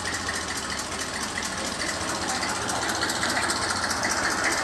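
Massey Ferguson 35 tractor's diesel engine running at low revs with a steady clatter as the tractor rolls slowly forward, growing gradually louder as it comes closer.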